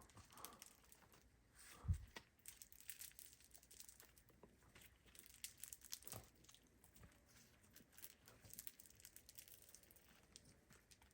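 Faint, irregular crackling and small pops of an over-activated foam-bead slime, full of beads and foam balls, being squeezed and stretched by hand, with one soft thump about two seconds in.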